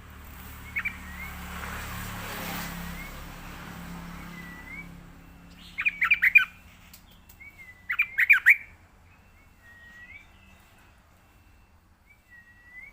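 Yellow-vented bulbul calling: soft short rising notes repeated every second or two, broken by two loud bursts of rapid chattering chirps about six and eight seconds in.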